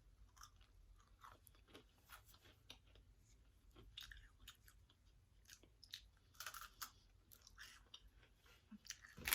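Person biting and chewing a Sky Flakes cream-filled cracker: faint, dry crunches scattered through, bunched in two spells around the middle.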